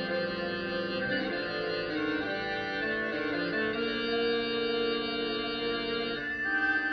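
Concert band playing slow, held chords in a concerto for baritone saxophone and band, the harmony moving every second or so with a new, brighter chord near the end.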